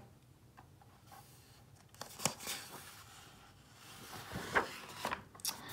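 Faint rustling and soft clicks of a hardcover picture book's paper pages being handled and turned, starting about two seconds in and growing near the end.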